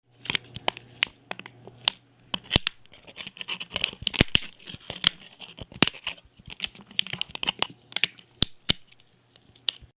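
Hard plastic of a lucky cat figurine being pried and scraped at: a run of irregular sharp clicks, scratches and creaks as the shell is forced open.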